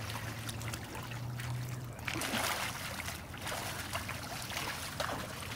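Shallow river water splashing and trickling around a wading man and a large white sturgeon held in the shallows for release, over a steady low hum.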